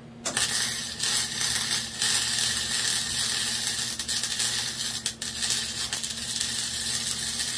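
Flux-core wire-feed welder's arc crackling on steel, striking about a third of a second in and running on with a few brief stutters.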